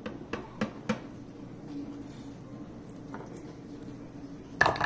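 Small silicone-coated whisk tapping against a countertop among loose garlic cloves: three light taps in the first second, then a louder knock near the end.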